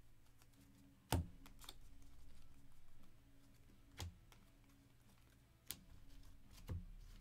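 Baseball trading cards being handled and sorted by hand: a handful of sharp taps and clicks as cards are flicked through and set down onto piles on the table, the loudest about a second in, over a steady low hum.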